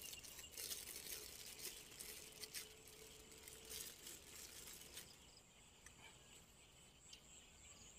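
Near silence: faint crinkling of a small plastic bag as food is pulled out of it by hand, over faint steady insect song that becomes clearer about five seconds in.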